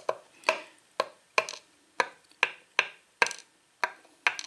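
Small metal lock pins from a disassembled pin-tumbler lock clicking against a hard surface and each other as they are handled. There are about a dozen sharp clicks, roughly two a second, each with a brief ring.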